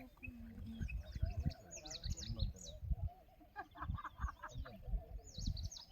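Birds chirping and calling in quick, short high notes, over a low rumble with frequent bumps.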